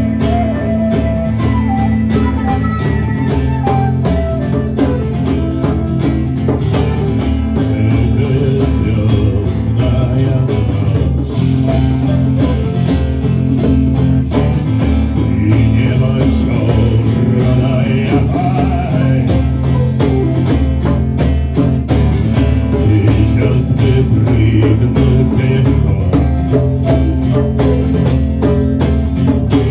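A band playing a song live, led by guitar over a steady beat.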